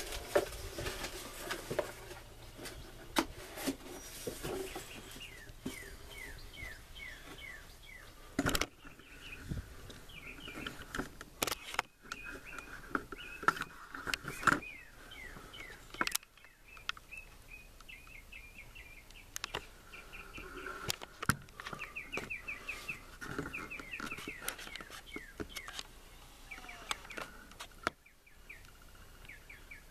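Small birds chirping in quick runs of short repeated notes, with a few sharp clicks and knocks here and there.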